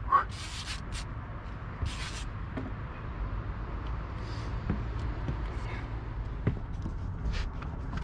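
Short rustles and scrapes of fishing line and tackle being handled, a few times over several seconds, over a steady low rumble.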